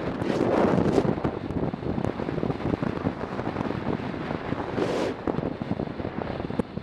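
Wind rushing over a motorcycle-mounted camera's microphone while riding, with the motorcycle's engine running beneath it; the wind noise swells in gusts about half a second in and again around five seconds in.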